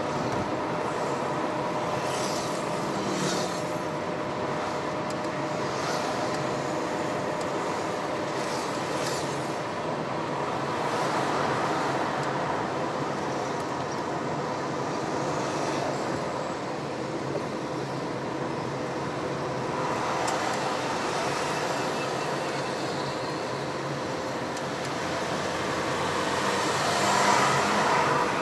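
Steady road and engine noise of a moving car, heard from inside the cabin, with a faint steady whine. It swells briefly near the end.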